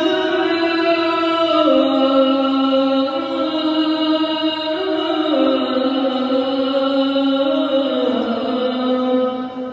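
Islamic call to prayer (adhan) chanted by a single voice in long, drawn-out held notes that step slowly from pitch to pitch, trailing off at the very end.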